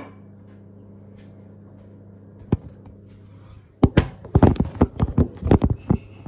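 Kitchen bowls knocking and clattering on a counter close to the microphone: a steady low hum with a single click, then from about four seconds in a quick run of loud knocks.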